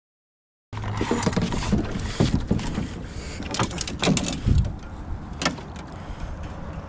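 Sounds of a canoe on the water: several sharp splashes and knocks, some sliding down in pitch, over steady wind noise on the microphone. The sound cuts in abruptly after a moment of silence.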